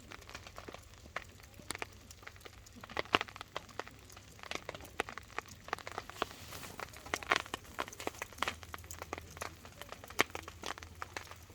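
Wood campfire burning down near its end, crackling with irregular small pops, a few sharper ones standing out.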